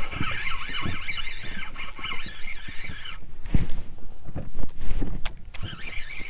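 Spinning reel being cranked to bring in a freshly hooked fish, its gears whining with a wavering pitch. Wind buffets the microphone, with a few knocks about halfway through, the loudest near the end.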